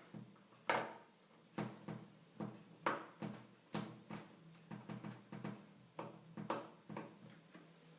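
A series of sharp plastic-and-metal clicks and knocks, about one every half-second to second, as the PlayStation 3 fat's outer casing is handled and fitted back together.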